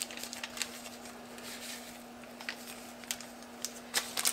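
A paper seasoning packet being shaken and tapped out over a soup pot, giving scattered light ticks and rustles, a few more of them near the end, over a steady low hum.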